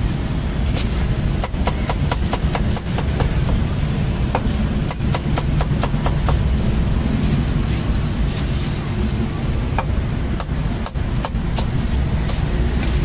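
Cleaver chopping cooked offal and cucumber on a thick wooden chopping block: quick runs of sharp knocks with a short lull midway, over a steady low rumble.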